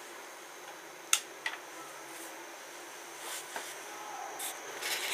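Steady hiss of room tone, with two sharp clicks about a second in and a few brief rustling noises later, the last of them near the end.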